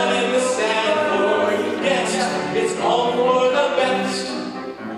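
Two male voices singing a musical-theatre song into stage microphones, with musical accompaniment.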